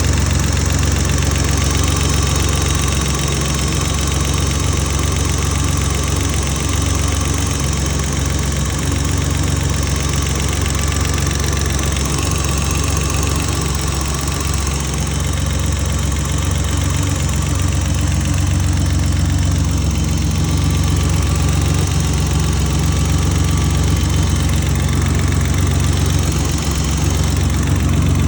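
BMW M30B34 3.4-litre straight-six idling steadily, with a light tick that the owner asks might be lifter tick.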